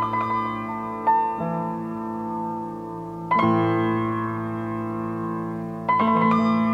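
Solo piano playing a slow, quiet piece: four chords struck a second or more apart, each left to ring and fade before the next.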